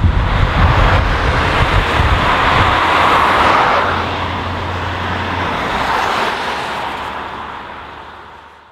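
Scania R164L 480 truck with its V8 on straight pipes driving past with a deep exhaust rumble, followed by the tyre noise of cars passing close behind. All of it fades out near the end.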